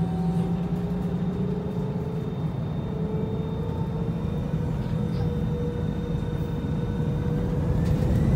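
Jet airliner's engines heard from inside the cabin: a steady rumble with whining tones that slowly rise in pitch. It grows louder toward the end as the engines spool up for takeoff.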